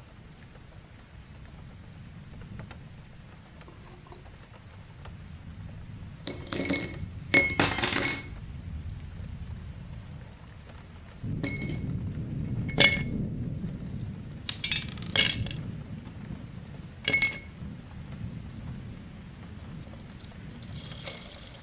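Small metal parts of an old mechanical alarm clock clinking and tapping against each other and a hard surface while it is worked on. A quick cluster of bright clinks comes about six to eight seconds in, then single clinks every second or two, with soft handling noise between.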